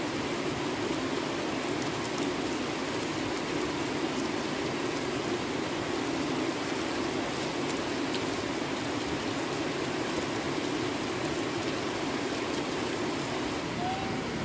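A steady rushing noise that holds the same level throughout, without breaks or distinct knocks.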